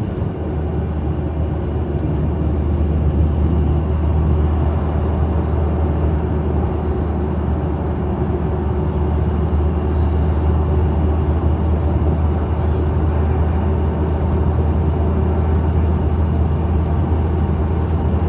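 Jeep Gladiator Rubicon driving at highway speed, heard from inside the cab: a steady low drone of engine, tyres and wind that holds even throughout.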